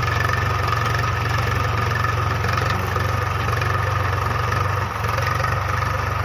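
Farm tractor's engine running steadily at a constant speed, with a low hum and a steady whine above it.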